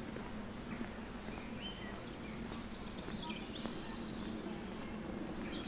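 Several songbirds singing in the trees: short high whistles, slurred notes and a fast trill about halfway through, over a steady low background hum.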